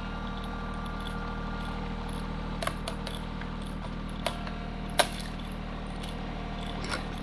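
TYM T264 compact tractor's diesel engine running steadily while pulling a seed planter, with four sharp metallic clicks and rattles from the planter, the loudest about five seconds in.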